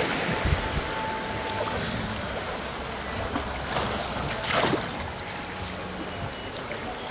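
River water rushing and splashing steadily around a raft, with a couple of louder splashes about four and four and a half seconds in.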